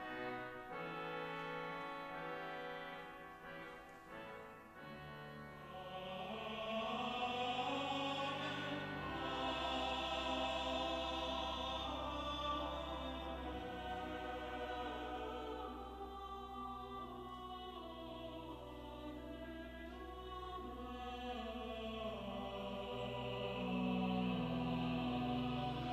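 Slow sacred choral music: voices singing long held notes over sustained church organ chords with a deep held bass note.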